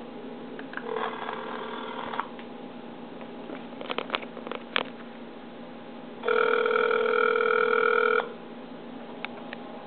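Ringback tone of an outgoing call sounding through a mobile phone's speakerphone: a shorter, quieter ring about a second in, then a louder ring of about two seconds four seconds later. A few soft clicks between the rings.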